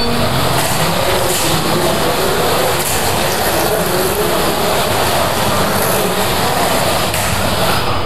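Several Carrera Digital 1/32-scale slot cars racing around a plastic track: a steady, dense whir and rattle of their small electric motors and wheels on the track.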